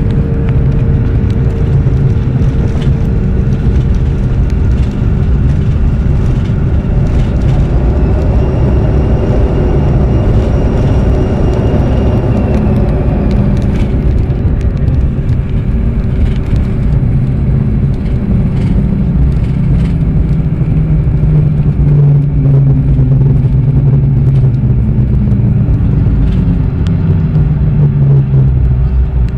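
Jet airliner cabin noise during the landing: a loud, steady rumble of engines and airflow. A high engine whine comes in and fades away a few seconds later, and the low rumble grows heavier in the later part.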